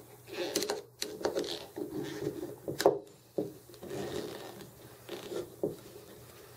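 A flat screwdriver prying and working a rubber U-cup seal off a metal pinch-valve piston: irregular rubbing and scraping of rubber and steel, with a few sharp clicks as the part is handled.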